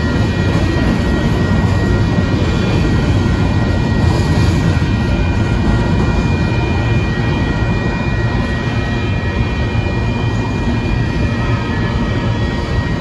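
Covered hopper cars of a freight grain train rolling past, a steady loud rumble of steel wheels on the rails. Several thin steady high tones sound above the rumble throughout.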